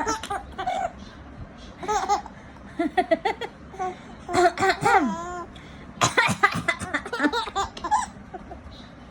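A baby laughing in repeated bursts of high, wavering giggles with short pauses between them, set off by an adult's coughing.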